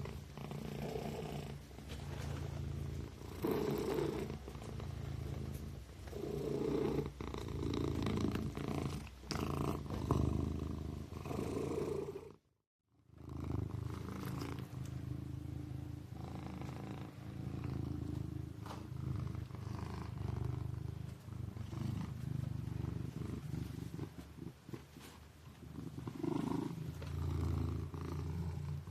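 Kitten purring steadily, a low continuous buzz that swells louder every few seconds. It cuts out completely for about half a second near the middle.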